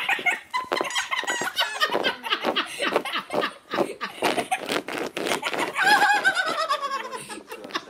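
Squeaky dog toy squeaking rapidly and repeatedly in quick bursts, with a longer squeal falling in pitch about six seconds in.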